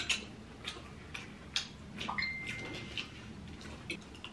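Forks and cutlery clicking against ceramic bowls and plates during a meal: a scatter of light clinks, one of which rings on briefly about two seconds in.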